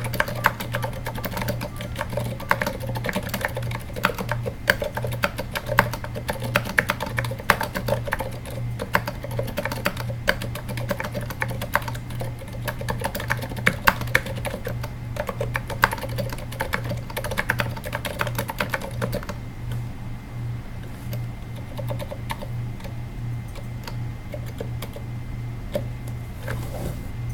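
Typing on a Katana-60 keyboard with 78g Zilents silent tactile switches, whose sliders are rubber-dampened on the downstroke and upstroke. It makes quick, soft keystrokes that thin out to scattered presses about two-thirds of the way through, over a steady low hum.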